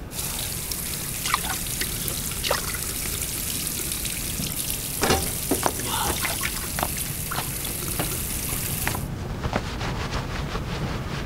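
Bathroom washbasin tap running into the basin, with splashes as water is scooped up and splashed on a face; the tap is shut off about nine seconds in.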